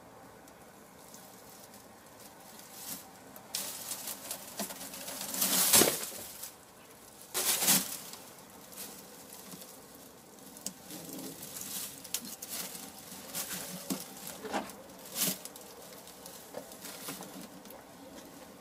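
A hen shifting and scratching in the straw of a nest box, a run of dry rustles. The loudest rustles come about five to six seconds in and again just before eight seconds, with lighter ones scattered after.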